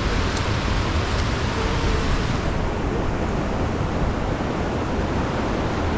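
Steady rush of muddy floodwater flowing over rocks and gravel, with wind buffeting the microphone; the hiss thins out about two and a half seconds in.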